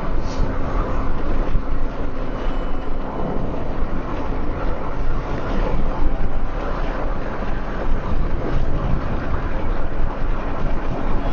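Steady low rumble and road noise of a car being driven, with no distinct events.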